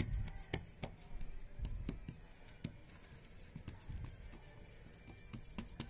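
Hands patting and pressing fresh cow dung into a plate mould: soft, irregular pats and dull thumps with a few small clicks.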